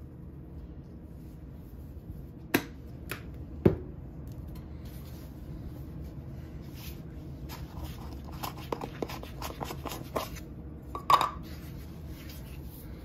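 Plastic spice shaker bottles handled over a crock-pot while seasoning chicken: three sharp clicks and taps, then a quick run of small clicks, and a louder clatter near the end.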